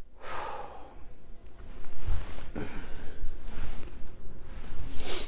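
A man's breathy exhale, then low rumbling bumps and rustles of clothing as he moves his hands.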